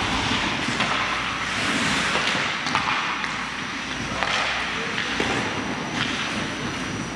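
Ice hockey play: skate blades scraping and carving across the ice, with a few sharp clacks of sticks and puck.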